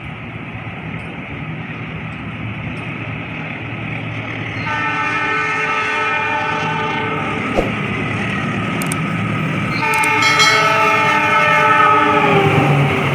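KAI CC 206 diesel-electric locomotive at the head of a passenger train running through the station without stopping. It sounds two long horn blasts, the second dropping in pitch as the locomotive passes, over a rumble of engine and wheels that grows louder throughout.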